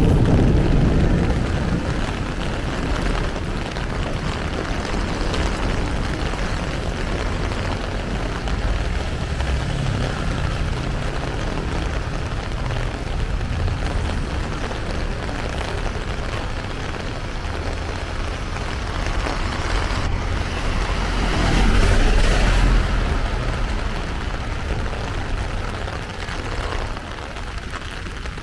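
Heavy rain pouring down, with the low rumble of street traffic underneath. The rumble swells as a vehicle passes about three-quarters of the way through.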